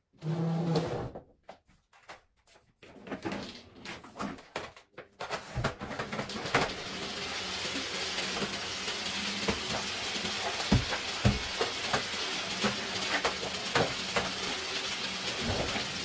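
Canister vacuum cleaner starting up after some handling clatter, then running steadily with its floor nozzle pushed over a hard floor, with a couple of sharp knocks as the nozzle bumps about.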